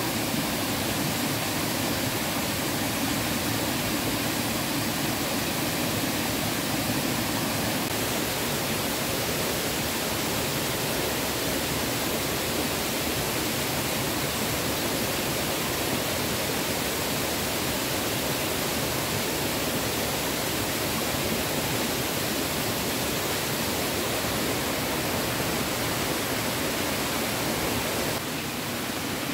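Steady rushing of flowing water, an even hiss with no breaks, dipping slightly in level near the end.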